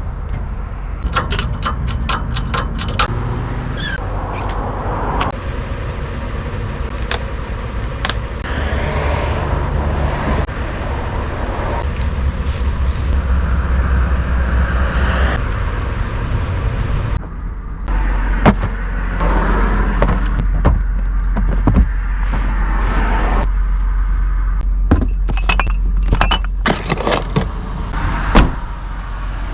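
Vehicle running, a steady low rumble with many sharp clicks and knocks scattered through it; the rumble dips briefly about two thirds of the way in.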